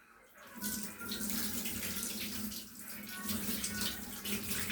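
Water starts running from a tap about half a second in and keeps pouring steadily into a bath while a kitten is washed.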